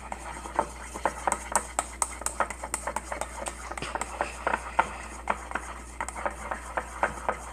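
A stirrer scraping and clicking against a ceramic bowl as it mixes a thick glue slime, with irregular taps several times a second.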